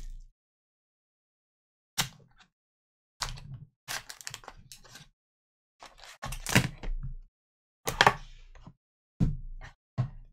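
Cardboard trading-card hobby box being opened and handled by gloved hands: about eight separate sharp cracks and knocks as the box and the inner card box inside it are pulled apart and set down, the loudest a little past the middle.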